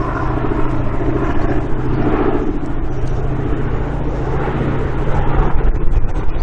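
The four Wright Cyclone radial piston engines of a Boeing B-17 Flying Fortress in flight, droning steadily as it passes overhead.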